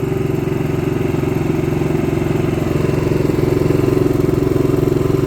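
A-iPower GXS7100iRD dual-fuel inverter generator running steadily on propane, seconds after starting right up.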